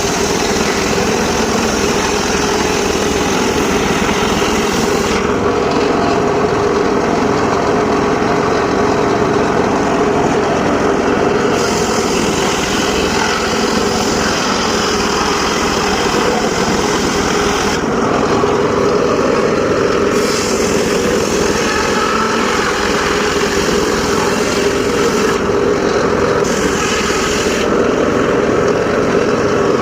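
Homemade bench circular saw cutting teak wood, its drive running steadily while the hiss of the blade in the wood comes and goes in stretches of several seconds.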